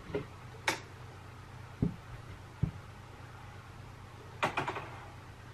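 A few light knocks and clicks spaced out over the first three seconds, then a quick cluster of taps about four and a half seconds in, over a faint steady hum: plastic water bottles being handled and set down on a freezer shelf.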